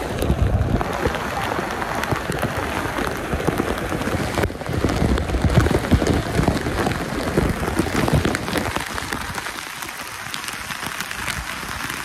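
Waterfall water pouring and splashing straight onto the camera, a dense spatter of drops over low buffeting thumps of water striking the microphone. The low buffeting eases about three-quarters of the way through.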